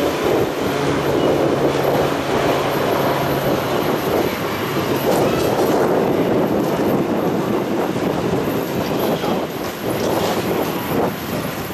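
Boeing 737-800's CFM56 turbofan engines during the landing rollout: a loud, steady jet rumble as the airliner slows down the runway after touchdown.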